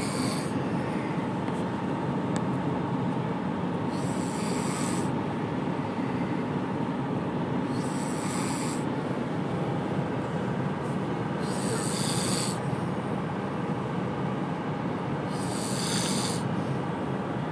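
A person snoring in deep sleep, a loud snoring breath about every four seconds, five in all, over a steady background rumble.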